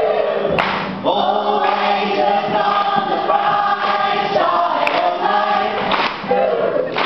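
Live singing of a pop song by many voices together, carried by a man singing and playing acoustic guitar, in phrases with short breaks between them.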